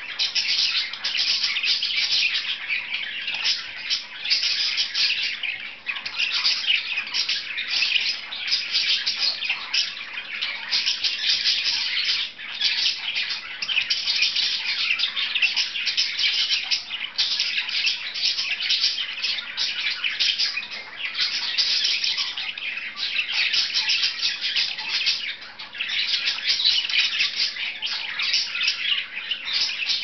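Pet budgerigars chirping and chattering without a pause, a dense, fast, high-pitched warble with only brief dips.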